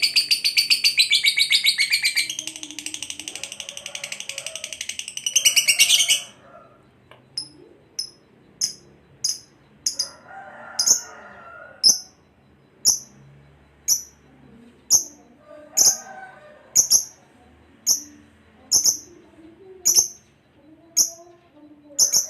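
Lovebird ngekek: a long, rapid, dense high chatter for about six seconds, then breaking into sharp single high chirps, about one a second.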